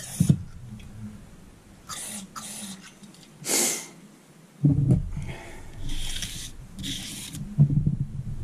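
An aerosol lubricant can sprayed through its straw onto the crankshaft journals in a series of short hisses, the loudest a little past three seconds in. From about halfway there are low knocks and rumble as the crankshaft is handled on the bench.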